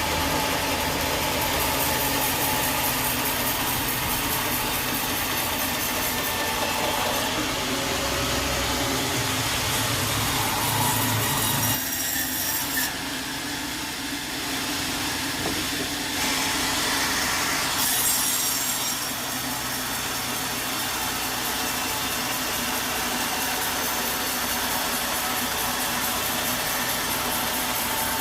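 Sawmill saw cutting through wood over a steady machine drone. The low drone drops out about twelve seconds in and the sound dips briefly before the cutting noise carries on.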